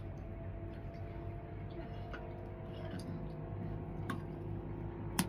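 Wood fire crackling in a clay stove, with scattered sharp pops and snaps, the loudest just before the end, over a steady low hum.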